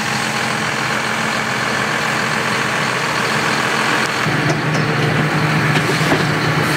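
John Deere tractor's diesel engine running steadily; its low hum grows stronger about four seconds in.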